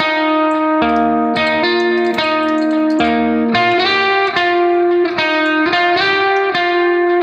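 Background music: a plucked guitar melody of clear, separate notes changing about every half second.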